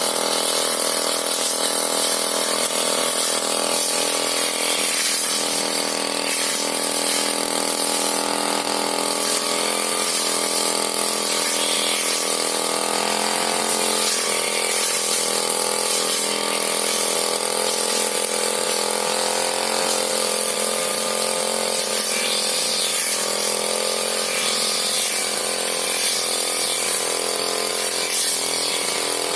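Brush cutter engine running steadily while clearing weeds around oil palms, its pitch wavering slightly as the load changes.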